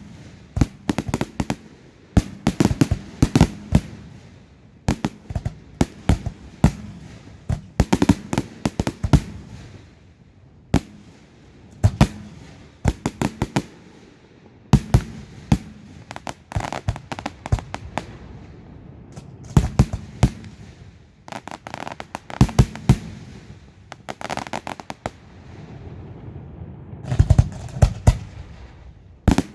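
Fireworks display: shells bursting in quick clusters of sharp bangs every second or two, with crackling and rumbling echoes between them.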